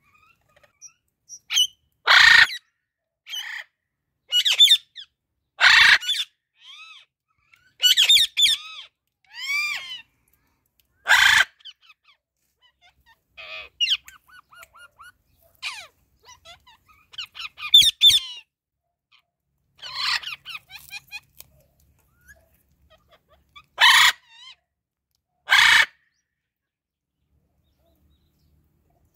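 Blue-and-gold macaw calling: loud, short harsh calls every few seconds, with softer gliding whistled and chirped notes between them.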